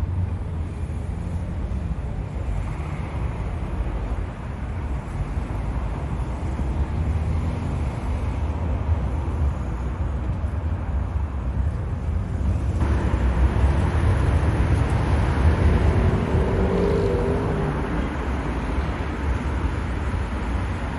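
City street traffic: a steady low rumble of passing cars and engines. About thirteen seconds in the sound turns abruptly brighter and louder, with heavier traffic noise for a few seconds after.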